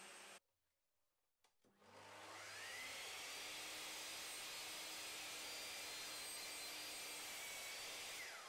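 Bosch sliding mitre saw motor spinning up, its whine rising over about a second, then running steadily before starting to wind down near the end.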